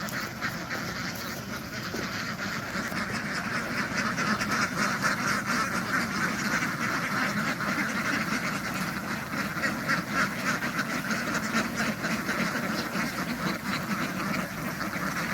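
A large flock of ducks quacking together, many overlapping calls forming a continuous din.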